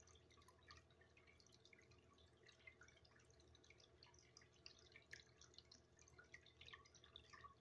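Near silence: faint, scattered irregular ticks and drips over a faint, steady low hum.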